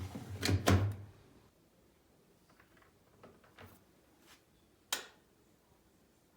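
Household handling noises: a loud clatter of knocks and clicks in the first second, a few faint clicks after it, and one sharp click about five seconds in.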